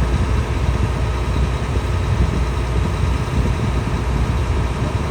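Heavy farm vehicle's engine running steadily with a deep, even rumble.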